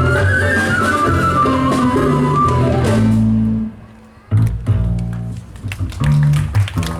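Live band music: a high melody line over guitar and bass that breaks off abruptly a little past halfway. After a brief drop in level, the bass notes and sharp percussion hits come back in.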